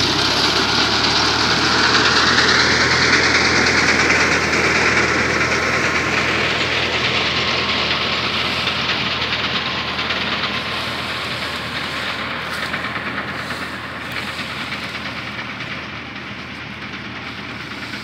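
Tractor engine running steadily under a loud mechanical clatter from its mounted wheat reaper. The noise is loudest a couple of seconds in and grows slowly fainter.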